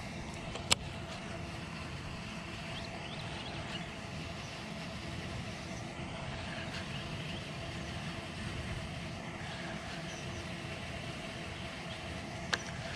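Steady low hum of distant engine noise, with a sharp click about a second in and another near the end.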